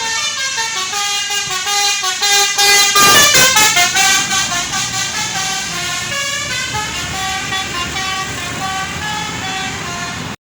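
Tour bus 'telolet' musical air horn playing a tune of stepped, held notes, loudest about three seconds in.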